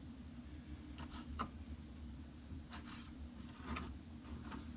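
Knife cutting raw chicken thighs into smaller pieces on a chopping board: a handful of short, scattered taps and scrapes over a low steady hum.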